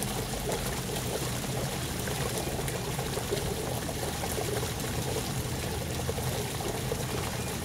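Hot spring water running steadily.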